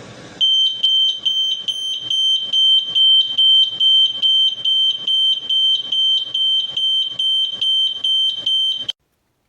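Smoke alarm sounding: a loud, high-pitched beep pulsing rapidly, about three times a second, that starts just after the beginning and cuts off suddenly near the end.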